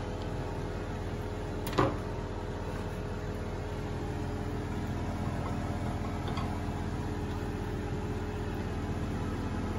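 Steady hum of a cooker extractor hood fan, with a single sharp knock about two seconds in.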